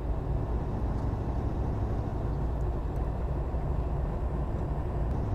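Semi truck pulling double trailers, heard driving steadily as a low, even engine and road rumble.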